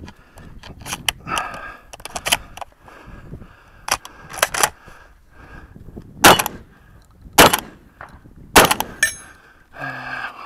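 Stoeger M3K 12-gauge semi-automatic shotgun firing a string of shots about a second apart, the loudest three in the second half. A steel target rings briefly right after the last shot.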